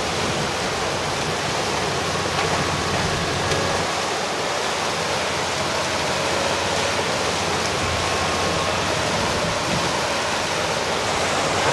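Floodwater in a swollen river rushing and churning past the bank, a steady, unbroken rushing noise.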